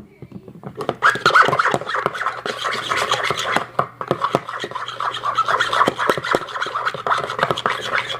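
Shampoo-and-salt slime mixture being stirred in a bowl: quick, continuous scraping and wet clicking, starting about a second in.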